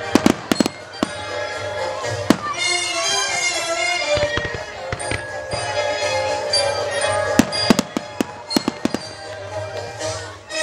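Aerial fireworks shells bursting in sharp bangs over music playing. A cluster of bangs comes in the first second, a single one a little after two seconds, and another cluster from about seven and a half to nine seconds.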